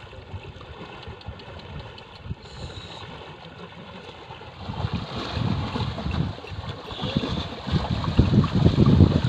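Water sloshing and splashing as a water buffalo wades through a shallow river, pulling a cart loaded with reeds, growing louder about halfway through as it nears. Wind buffets the microphone throughout.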